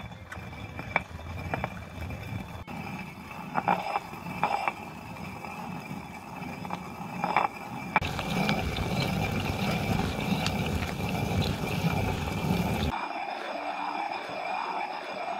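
Stone hand quern grinding barley: the turned upper millstone rubs round on the lower one with a steady rough grinding rumble. A few sharp knocks come in the first half, and the grinding is louder and fuller from about halfway on.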